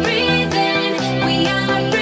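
Electronic dance music with a steady bass line whose notes change about twice a second under layered synth chords.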